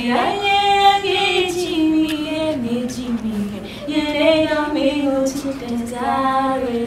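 A woman singing solo and unaccompanied, holding long notes with a wobbling vibrato and sliding between pitches, with a rising swoop at the start. It is a mock-earnest parody of over-the-top singing.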